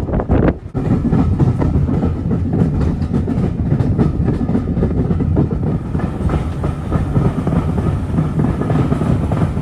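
Heritage steam railway carriage running along the track, its wheels clattering over the rails with a steady running noise. A few separate knocks come in the first second.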